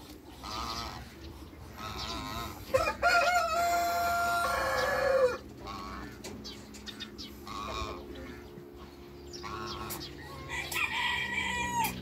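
A rooster crows once, a long call of about two and a half seconds that holds its pitch and then drops at the end. Short clucks and calls from other fowl come and go, with another shorter pitched call near the end.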